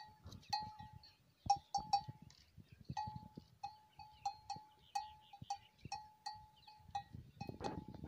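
Metal bell hung on a camel's neck clanking as the camel moves and browses, in uneven strikes about two a second. Each strike rings briefly at one clear pitch, with low rustling beneath.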